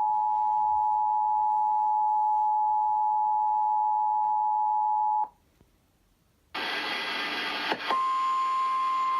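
Emergency Alert System two-tone attention signal (853 and 960 Hz) sounding steadily from a TV, cutting off about five seconds in. After a short silence a loud hiss of radio static starts, and about two seconds later, after a click, a single steady tone begins over the static: the weather radio's 1050 Hz warning alarm tone.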